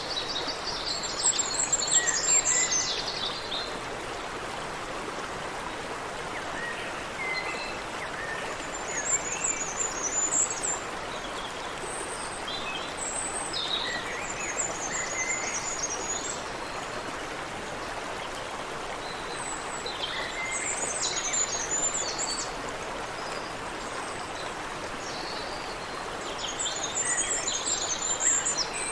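Creek water running steadily, with songbirds singing in short high, rapid twittering phrases every few seconds.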